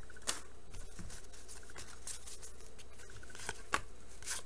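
A stack of 1989 Bowman baseball cards being thumbed through by hand: a few short, soft flicks and slides of card edges against each other, scattered irregularly.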